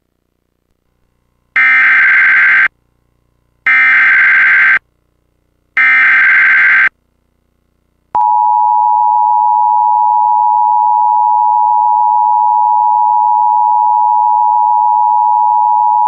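Emergency Alert System tornado-warning activation: three loud digital header bursts, each about a second long and two seconds apart, then from about eight seconds in the steady EAS attention tone.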